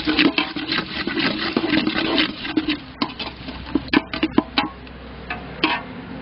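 Metal perforated skimmer ladle stirring chopped onions, tomato and mint in an aluminium pot, scraping and clinking against the pot. The scraping is dense for the first three seconds, then gives way to a few separate knocks.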